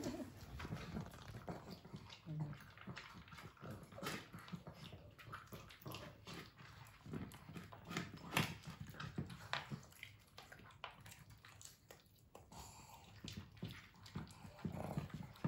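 A pug and a Pekingese-type dog eating dry kibble from bowls: faint, irregular crunching and clicking.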